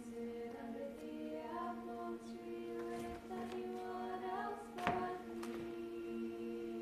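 Music of choir-like voices: a slow melody glides over a steady held drone. A single sharp knock comes about five seconds in.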